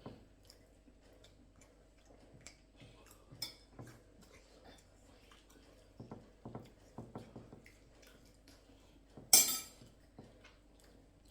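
Meal-table eating sounds: dishes and cutlery clinking in small scattered knocks, with chewing. About nine seconds in comes one brief, loud clatter, the loudest sound here.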